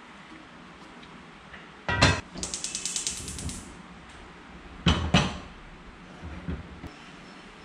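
A gas stove burner's igniter clicking rapidly for about a second as the burner lights, after a knock about two seconds in. A louder clunk of a metal pot on the stove follows about five seconds in, then a few lighter knocks.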